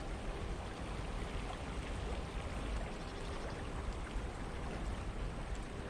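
Steady rush of flowing canal water.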